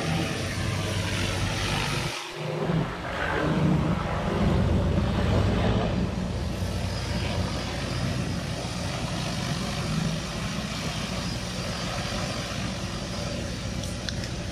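Large multirotor crop-spraying drone's propellers humming steadily as it flies overhead and out over the field. The sound drops out briefly about two seconds in.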